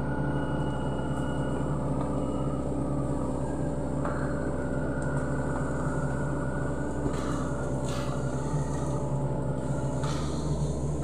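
Sany SY75C excavator's diesel engine running steadily, with a few short rushing noises over it near the end.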